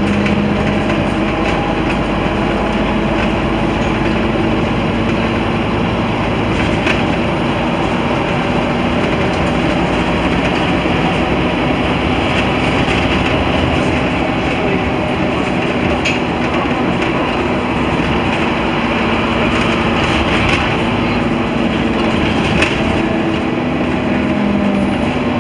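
Interior sound of a Scania N230UD Omnicity double-decker bus at speed: its five-cylinder diesel engine drones steadily under loud road and tyre noise, with a few light knocks from the body.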